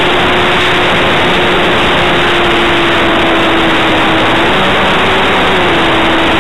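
Brushless electric motor and propeller of a Minimag RC plane heard from a camera just behind the propeller in flight: a loud, steady rush of propeller wash with one steady hum. The hum rises in pitch briefly about four and a half seconds in, then settles a little lower, as the throttle changes.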